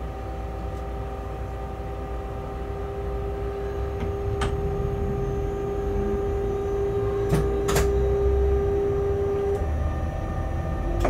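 Locomotive machinery humming in the cab over a steady low rumble. A strong steady whine stops about nine and a half seconds in, and a few sharp clicks come around the middle.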